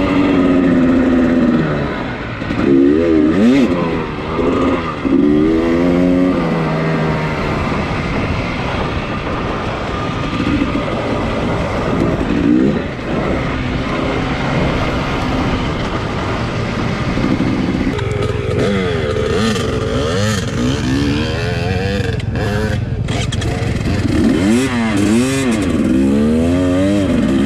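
Dirt bike engine being ridden hard, its revs rising and falling again and again with throttle and gear changes. It runs steadier through the middle stretch.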